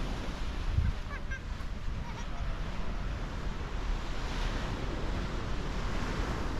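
Sea surf washing onto a sandy beach, a steady hiss that swells about four seconds in, with a low wind rumble on the microphone.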